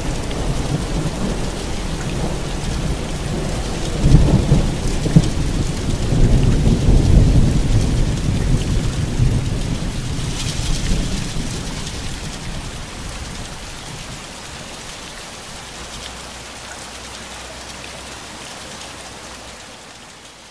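Thunderstorm sound effect: steady rain with a sharp thunder crack about four seconds in, followed by deep rolling rumbles that die away, the whole slowly fading out toward the end.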